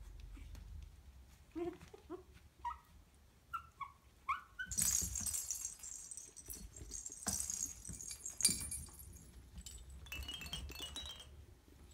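Maltese puppy giving a quick series of short high whimpers, about six in three seconds. These are followed by rustling, clicking and light jingling of the hanging toys as it plays among them.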